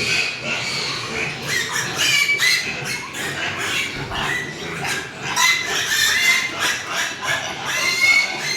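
Pigs squealing: many short, high-pitched calls overlapping one another without a break.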